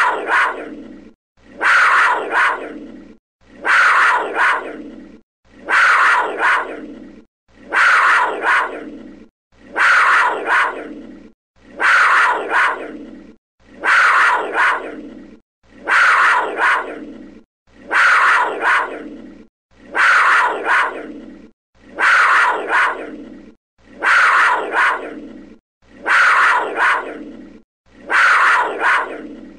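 A panther's rough call, the same short recording repeated about every two seconds, each one starting loud and trailing off.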